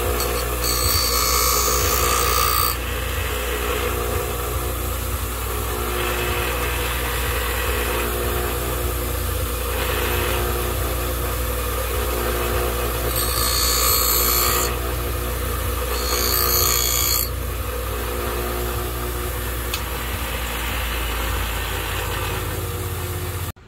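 Bench grinder motor running with a steady hum. About a second in and twice more past the middle, a higher grinding hiss rises over it as a blue plastic crimp connector held in pliers is pressed to the wheel, grinding away its insulation. The sound cuts off suddenly near the end.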